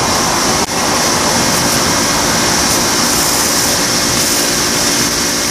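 Electric pressure washer running steadily, its motor and pump whining under the hiss of the high-pressure spray striking the roof edge, with a brief dip in the sound about half a second in.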